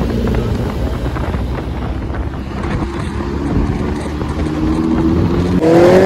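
Suzuki Hayabusa's inline-four engine pulling under throttle with wind rushing over the microphone. The engine pitch climbs steadily through the second half and jumps louder near the end as the bike accelerates.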